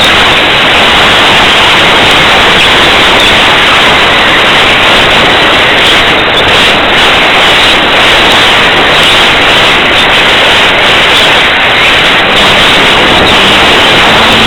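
Loud, steady rushing noise, most likely wind buffeting the microphone, drowning out everything else.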